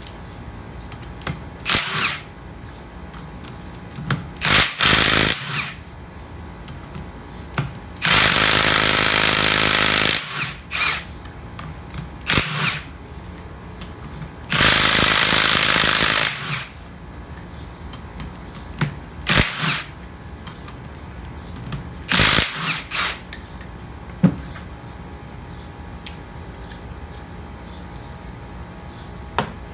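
A power tool run in short bursts, two of them lasting about two seconds, with metal clicks between, while the relief valves are worked out of a John Deere 2030 tractor's hydraulic pump.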